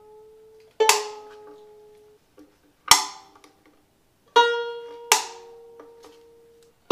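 Violin creaking and snapping under tuning as its worn tail gut slips: four sharp snaps, each followed by the strings ringing and dying away, the pitch shifting a little from one snap to the next. The threads on the plastic tail gut are stripped, so the nuts let it slip under string tension.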